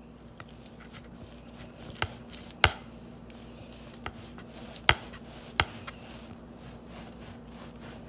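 A knife slicing a crusty French bread loaf: a few sharp knocks on the cutting board and faint crackling of the crust, over a faint steady hum.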